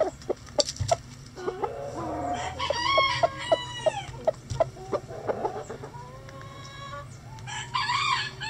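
Backyard chickens clucking, with a rooster crowing about two and a half seconds in, the crow falling in pitch at its end. Another loud call comes near the end.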